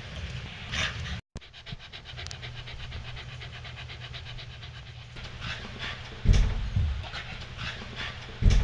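Jack Russell terrier panting quickly and evenly, about eight breaths a second, with two heavy low thumps about two seconds apart in the second half.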